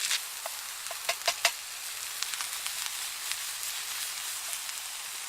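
Sausage, peppers, mushroom and spring onion sizzling steadily in butter in a small frying pan, with a few sharp clicks about a second in.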